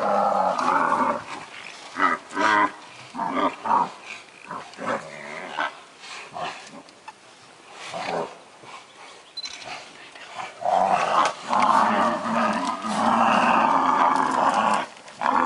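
Loud, drawn-out animal calls: one about a second long at the start and a longer one of about four seconds near the end, with scattered knocks and rattles in between.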